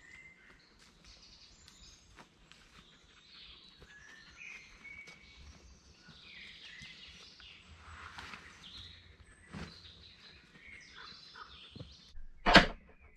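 Woodland birds calling and singing throughout, with faint steps on the forest floor. Near the end comes a single loud thump, much louder than anything else.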